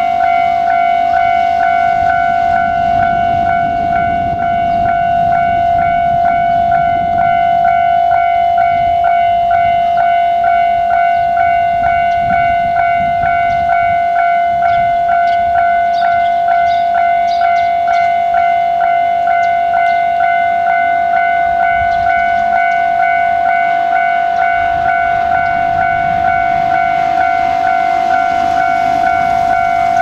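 Japanese railway level-crossing warning bell ringing, an electronic ding repeated evenly about twice a second: the crossing is closed for an approaching train.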